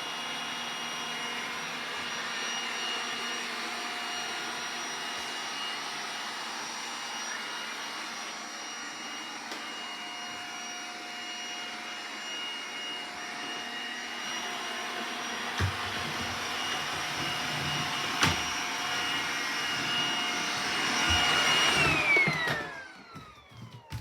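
iRobot Roomba 980 robot vacuum running with a steady whining motor hum, with a few knocks in the second half. Near the end its motors spin down with a falling whine and stop.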